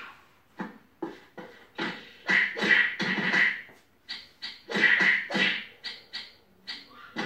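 Cartoon fight sound effects from a TV's speakers: a quick, irregular run of short hits, slaps and whooshes, densest about two and five seconds in.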